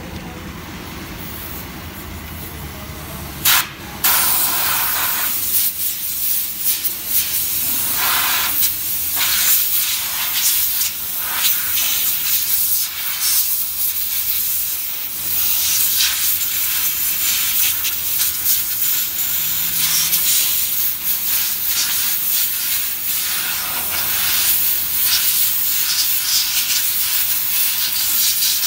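Compressed-air blow gun hissing in uneven blasts as it blows dust off a car's rear drum-brake backing plate and hub. It starts about four seconds in, just after a sharp click.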